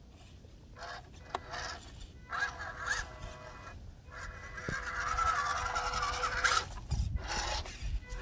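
Electric drivetrain of a WPL C24 KM RC crawler whining in several stop-start bursts of throttle, the longest about two seconds near the middle.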